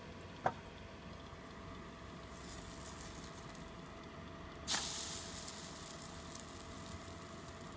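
French toast sizzling in a frying pan, a hiss that starts suddenly a little past halfway and dies down gradually over the next couple of seconds. A short sharp click about half a second in.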